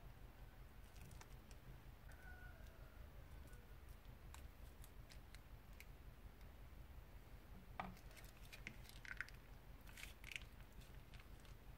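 Faint crinkling and clicking of plastic piping bags being handled and squeezed as slime is piped out onto shaving foam, over a low steady hum. The crackles are sparse at first and cluster near the end.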